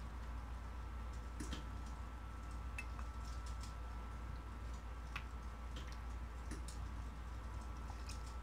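Metal ladle scooping chicken curry and setting it into a glass dish: scattered light clicks and taps, with a steady low hum underneath.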